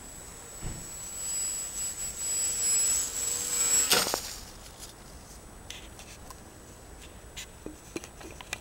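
Radio-controlled Batplane model's motor giving a high steady whine that grows louder as it comes in low, then cutting off with a thump as the plane lands on the grass about four seconds in. After that, only faint scattered clicks and rustles.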